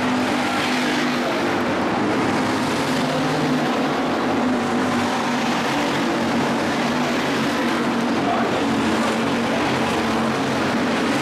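Several dirt-track stock cars racing around the oval together, their engines running loud and steady.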